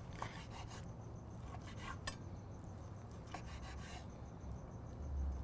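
Faint handling sounds from a hand at a platter of sliced steak: a few light, scattered clicks and rubbing over a low steady hum.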